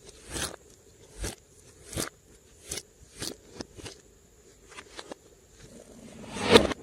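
Slime being pressed and worked by hand, giving a series of short clicky pops about once or twice a second, with a louder, longer squelch near the end.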